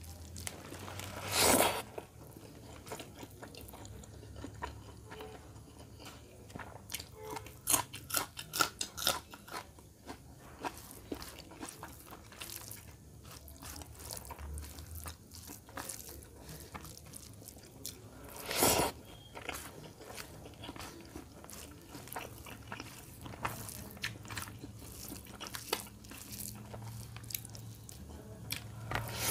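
A person eating rice and chicken curry by hand close to the microphone: chewing and wet mouth sounds with rice squished between the fingers, many small clicks, and two louder sharp sounds, about a second and a half in and again near the middle.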